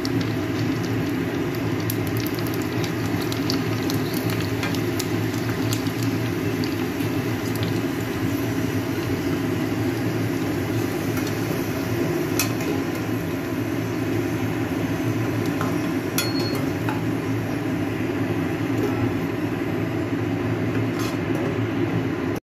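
Pani puri shells sizzling as they fry and puff up in hot oil in an aluminium kadai, over a steady low hum. A slotted steel spoon gives scattered clinks against the pan.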